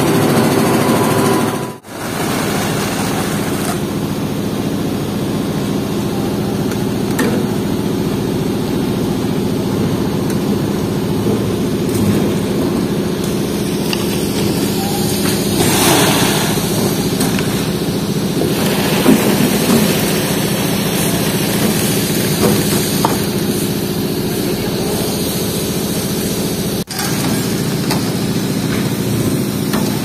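An engine running steadily, with two brief dropouts, one about two seconds in and one near the end.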